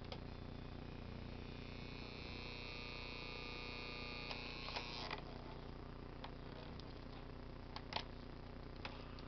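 Plastic case of a toy clock radio handled and turned over in the hands: a few light clicks and knocks, the loudest about eight seconds in. Under them is a steady low hum, with a faint high whine for a few seconds in the first half.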